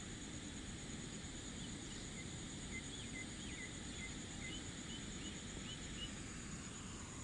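Insects trilling steadily at a high pitch, with a bird giving a run of quick, short chirps from about a second and a half to six seconds in.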